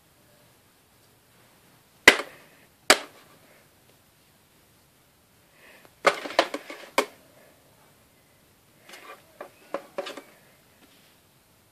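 Sharp clicks and clatter from a portable CD player being handled: two loud clicks about a second apart, a quick run of rattling clicks around six seconds in, then lighter clicks near the end.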